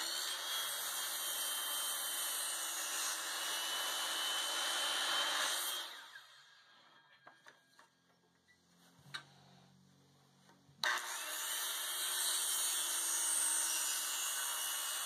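DeWalt circular saw running and cutting through thick rough-sawn lumber along a marked rafter line, in two cuts. The first cut lasts about six seconds and the saw winds down. A pause of about five seconds follows with a few light knocks, then the saw starts again suddenly and cuts on to the end.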